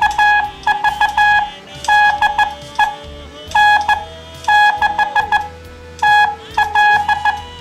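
Morse code from a Johnson Challenger tube transmitter on CW, heard through a National 303 receiver's speaker: a steady mid-pitched beep keyed on and off in groups of dots and dashes by an electronic keyer. It is a clean note with little warble.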